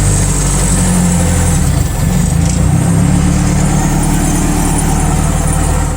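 Turbocharged Toyota 1NZ-FE four-cylinder engine in a Lada, running steadily at idle just after being started, with a brief dip about two seconds in.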